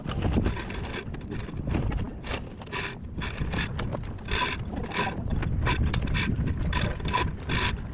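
Repeated metallic ratcheting clicks and rattles from a hoist as it lowers a heavy generator, with a steady low rumble of wind underneath.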